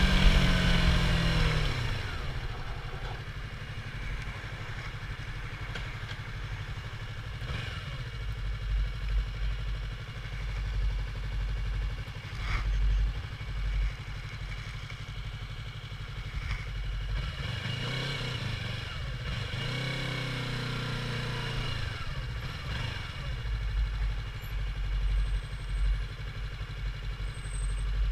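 Yamaha YZF-R25 parallel-twin motorcycle engine on its stock exhaust. It winds down in pitch and loudness over the first two seconds, then runs low and steady, with a brief rev up and back down about two-thirds of the way through.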